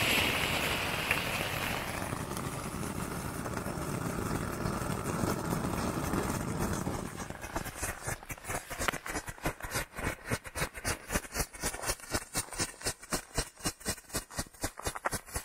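Ground fountain firework spraying sparks with a steady loud hiss that dies away about seven seconds in. Then a second ground firework pops rapidly in an even rhythm, about five pops a second, growing louder toward the end.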